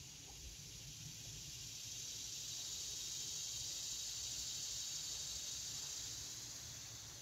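Insects in the summer trees buzzing in one long, high, hissing drone that swells to a peak about halfway through and then fades away.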